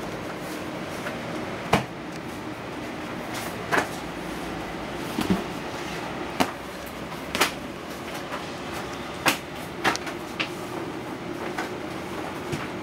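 Knocks and thumps from two cats wrestling and jumping about on a sheet-covered sofa: about eight sharp, short knocks at irregular intervals over a steady background hiss.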